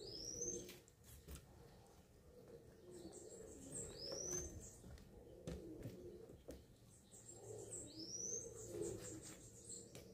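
Domestic pigeons cooing faintly in a low, steady warble. A bird's short rising chirp sounds three times, about four seconds apart.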